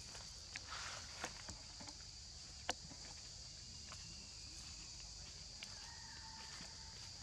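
A few crackles and rustles of dry leaves under a young monkey's feet, one sharp crackle the loudest, over a steady high-pitched insect drone.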